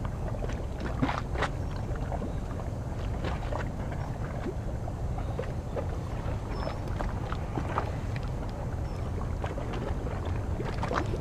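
Harbour waterside ambience: a steady low rumble with frequent small, irregular splashes of water lapping at the shore.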